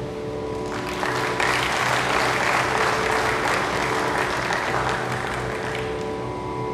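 Audience applauding at the close of a Carnatic percussion piece, starting about a second in, swelling, then dying away near the end. A steady drone note holds underneath.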